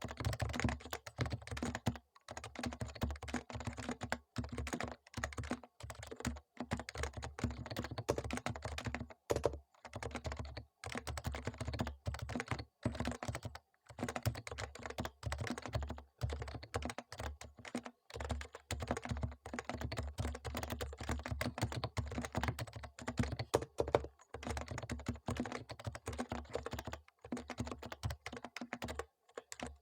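Topre Realforce R3 keyboard being typed on steadily, a fast run of soft key strokes from its Topre electrostatic capacitive switches with short pauses, typed directly on the bare desk without a desk mat.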